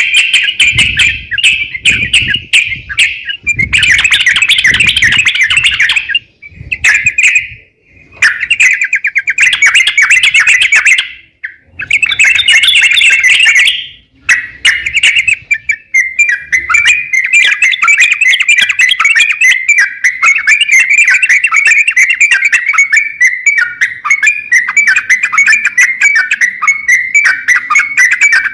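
A crokcokan songbird singing loudly and vigorously in rapid chattering phrases. The phrases come in long bursts with short breaks at first, then run on as one unbroken stream of fast chatter.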